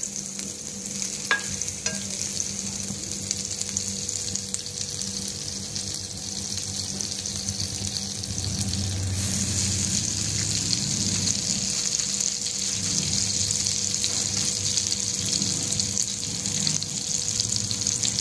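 Butter sizzling and bubbling as it melts in a hot non-stick frying pan, with a couple of light clicks near the start. The sizzle grows louder about halfway through.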